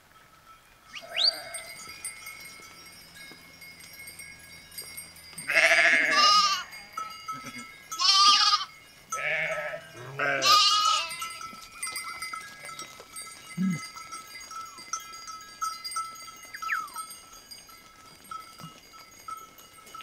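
A flock of sheep bleating, with four loud, wavering bleats in quick succession from about five and a half to eleven seconds in and fainter calls after. Thin, steady bell-like ringing carries on beneath the bleats.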